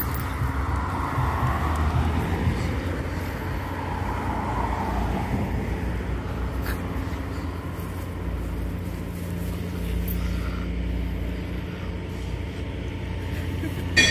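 Steady low rumble of outdoor background noise, even throughout.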